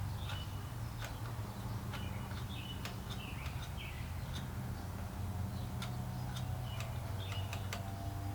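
Honda small engine of a Kärcher pressure washer running steadily after starting, a low even hum with scattered light ticks; it is not running as it should, and the choke is suspected. Birds chirp faintly now and then.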